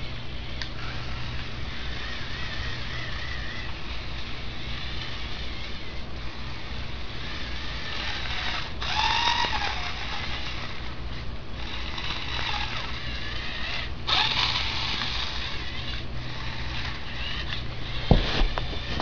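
Lego Power Functions buggy's electric motor and plastic gears whining as it drives, the whine swelling and shifting in pitch as it passes close about nine seconds in and again around fourteen seconds. A few sharp clacks near the end as the buggy comes right up to the microphone.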